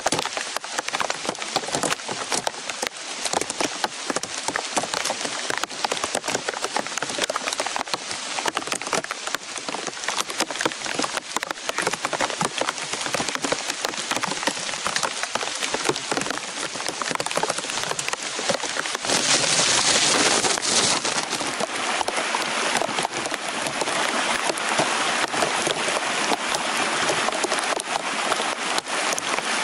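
Heavy rain falling, a dense steady patter of drops, with a brief louder rush of hiss about twenty seconds in.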